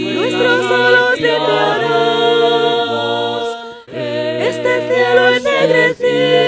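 A cappella vocal quartet of two men and two women singing a Spanish song in close harmony, with held notes and a brief pause for breath about four seconds in.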